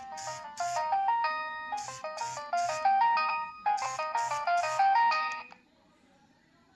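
Preloaded ringtone on a Nokia 3120b phone playing a short synthesized melody with a steady drum beat, cutting off about five and a half seconds in.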